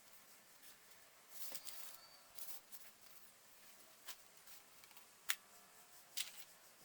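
Faint handling of a T-shirt parcel's wrapping: a couple of short rustles and crinkles, then three sharp clicks spaced about a second apart.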